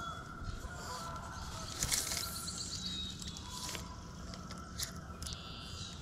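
Quiet outdoor ambience with a low steady background noise, a short chirping bird trill about halfway through, and a few light clicks.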